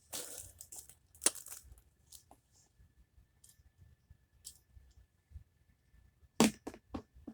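Fidget toys and their plastic packaging being handled: scattered clicks and rustling, with a sharp click about a second in and a quick run of sharp clicks near the end.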